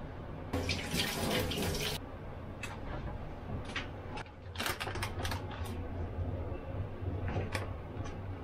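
Kitchen tap runs for about a second and a half, followed by scattered clicks and knocks as the cabinet under the sink is opened and a seasoning shaker bottle is handled, with a few more taps near the end. A steady low hum runs underneath.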